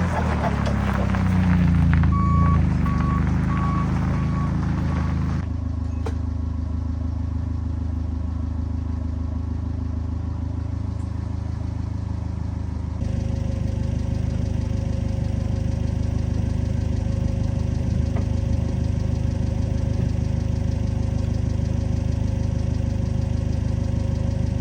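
Bobcat 743B skid steer's diesel engine idling steadily. A run of short electronic beeps sounds about two seconds in.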